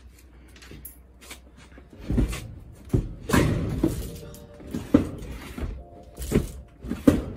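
Knocks, thunks and scraping from a large old chest being handled and shifted, with several sharp knocks in the second half, over background music.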